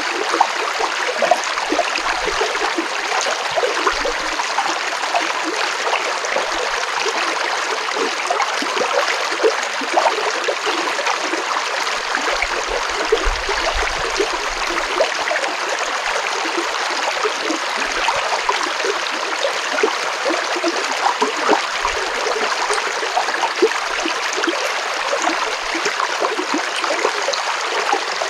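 Stream water flowing and splashing steadily over rocks, a continuous rushing with small gurgles and splashes throughout.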